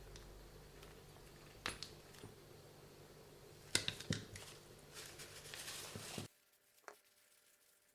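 Small tools and RC car parts being handled: a few sharp clicks and a short stretch of scraping, over a steady low hum that cuts out suddenly about six seconds in.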